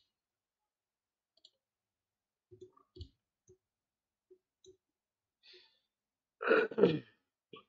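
A few soft, scattered clicks at a computer, followed about six and a half seconds in by a short sigh, the loudest sound.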